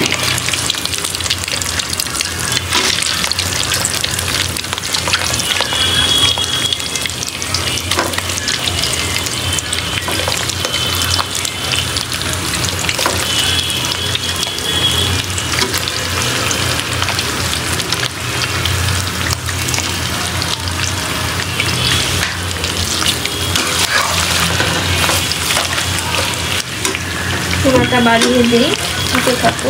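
Chunks of meat frying in hot oil in a pan, a steady sizzle with constant fine crackling.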